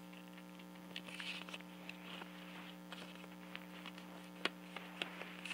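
Faint steady low hum with scattered small clicks and a brief rustle, like hands handling something close to the microphone; the sharpest click comes about four and a half seconds in.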